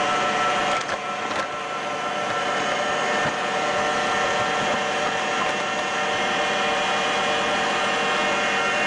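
Stand mixer motor running steadily, a whirr with a constant whine, whipping a gelatin mixture. It dips briefly about a second in, with a couple of clicks.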